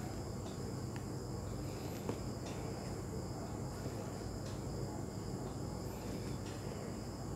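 Steady high-pitched ringing at two pitches over a low background hum, with a few faint clicks.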